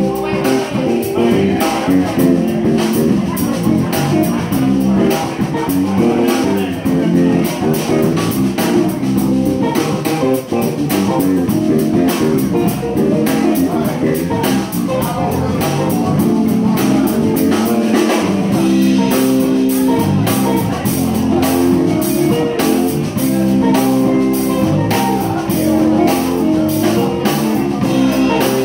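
Live band playing, with electric bass and drum kit to the fore.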